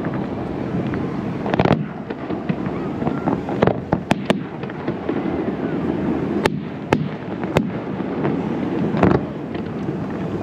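Fireworks display: about eight sharp bangs of bursting aerial shells at irregular intervals, over a steady murmur of the watching crowd.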